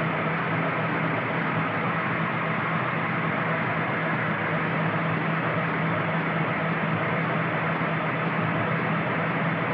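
Steady noise of factory machinery running, with a low hum held underneath.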